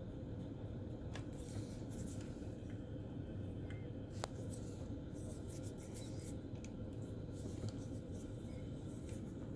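Fine paintbrush scratching and dabbing over the plastic surface of a scale model: faint, irregular scratchy strokes over a steady low hum, with one sharp click about four seconds in.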